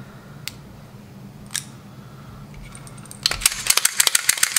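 A couple of single clicks, then from about three seconds in a rapid run of sharp metallic clicks and clacks, about ten a second, as the freshly lubricated Canik TP9 SFX pistol is handled and worked. A low steady hum underneath.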